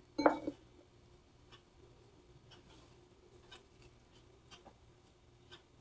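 Quiet room with a faint steady hum and scattered faint light ticks as chopped coriander and green chilli are sprinkled by hand over a ceramic dish of fish curry. A brief murmur of a voice comes just after the start.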